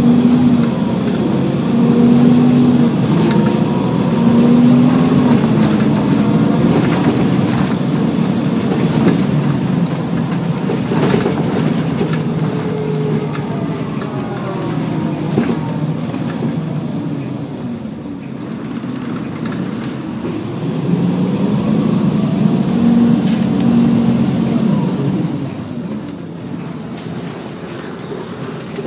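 Cummins M11 diesel engine of a 1999 Gillig Advantage transit bus with an Allison B400R automatic transmission, pulling hard and rising in pitch through gear changes at first, then winding down as the bus slows. About three-quarters of the way through it pulls and rises again, then eases off, with a few brief knocks from the bus near the middle.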